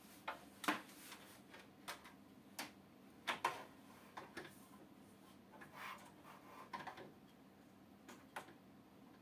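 Light plastic clicks and taps at irregular intervals, a dozen or so, as an aquarium LED lamp bar is fitted into the plastic lid of an Aquael Leddy 60 tank.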